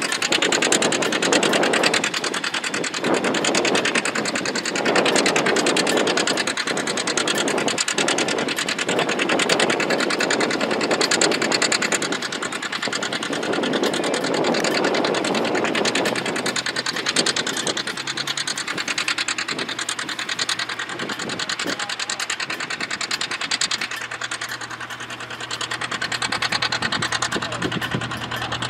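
John Deere R two-cylinder diesel tractor engine running steadily under load while pulling a plow, a fast, even beat of firing pulses.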